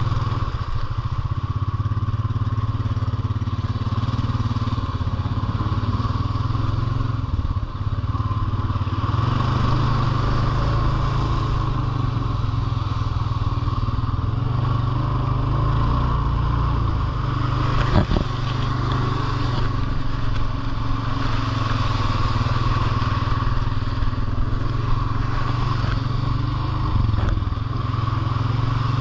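Off-road vehicle's engine running steadily under way, with small rises and falls in speed. There is a sharp knock about eighteen seconds in and a lighter one near the end.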